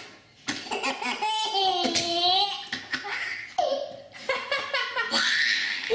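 A small child's belly laughter in several high-pitched fits, the longest drawn out about two seconds in.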